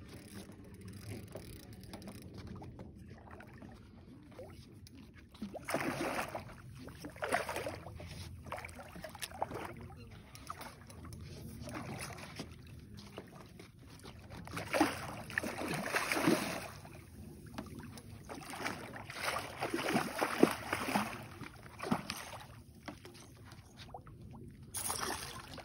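A hooked striped bass splashing and thrashing at the water's surface in several irregular bursts, the first about six seconds in, with low steady background noise in between.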